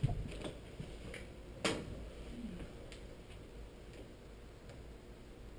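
A dry-erase marker being handled at a whiteboard: a clatter as it is taken from the board's marker tray, one sharp click a little under two seconds in, then faint light ticks as the marker draws on the board.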